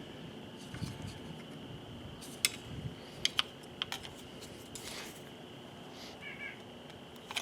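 Hand tools working a pickup's tailgate latch rod: a handful of sharp, light metal clicks and taps, bunched in the middle, as the rod is bent to fix a sticking latch. A faint steady high tone runs underneath.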